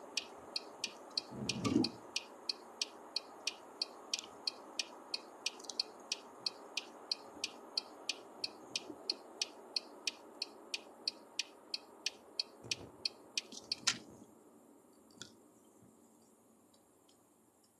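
Car turn-signal indicator ticking in the cabin, about three clicks a second, then stopping about fourteen seconds in as it cancels. Under it runs steady road noise, with a low thump about two seconds in. The road noise dies away near the end as the car slows.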